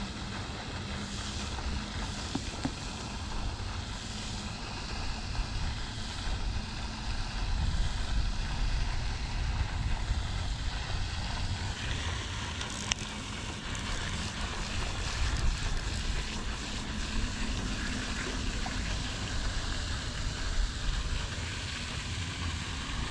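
Wind rumbling on the microphone over a steady hiss of splashing water from the pond's spray fountain.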